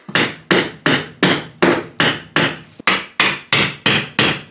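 Steady, evenly paced hammer blows, about three a second, each a sharp strike with a short ringing decay.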